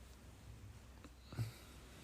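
A soft breath close to the microphone about a second in, with a faint low bump, over quiet low hum.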